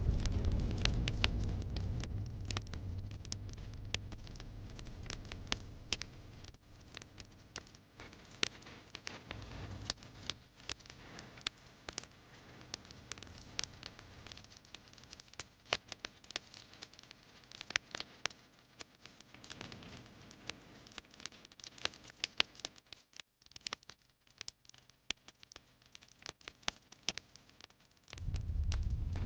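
Wood fire in a fireplace crackling, with frequent sharp pops and snaps. A low rumble fades over the first few seconds and comes back suddenly near the end.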